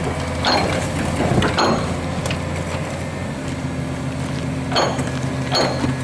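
Excavator's engine and hydraulics running steadily while its grapple crushes a car, with about five sharp metallic clanks and cracks of crumpling sheet metal and glass. The drone's pitch changes about three seconds in.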